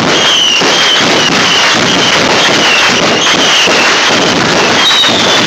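Consumer fireworks going off in a continuous barrage: dense crackling with a run of short, high whistles, one after another.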